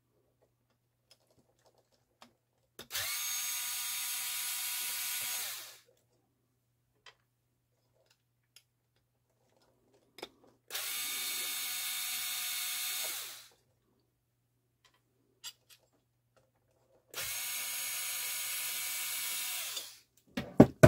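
Cordless electric screwdriver running three times, about three seconds each, backing out the screws that hold a turntable motor assembly together. A couple of sharp clicks follow near the end.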